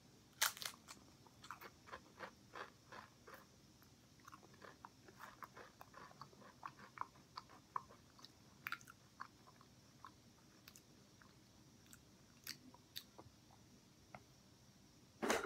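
A Pringles potato chip crunched in the mouth: a sharp bite about half a second in, then quick crunching chews that thin out, and another loud crunch near the end.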